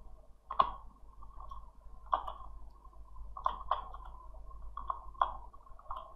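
Sparse computer mouse clicks, about seven short separate clicks spread irregularly, over a low steady hum.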